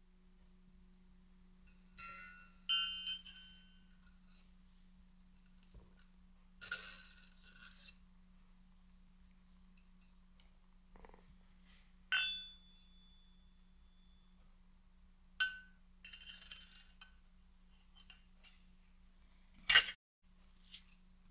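Steel parts of a Mosin-Nagant rifle bolt clinking and scraping as they are handled and fitted together by hand, with scattered short clinks, a few ringing briefly, and the sharpest one near the end. A steady low hum runs underneath.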